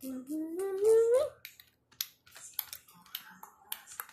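A voice gliding upward in pitch for about a second, then a run of irregular clicks from computer keyboard keys.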